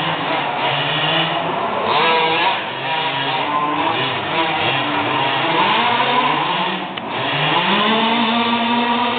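Several large-scale petrol RC buggies' small two-stroke engines revving up and down as they drive, their pitches rising and falling over one another; near the end one engine climbs and holds a high rev.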